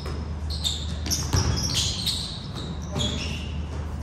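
Basketball game on a hardwood gym floor: sneakers squeaking in short high chirps and a basketball bouncing, over a steady low hum.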